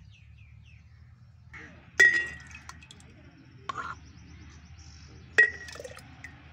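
Metal ladle clinking against a glass jar as mango chutney is spooned into it: two sharp, ringing clinks, about two seconds in and again past five seconds, with a softer knock between.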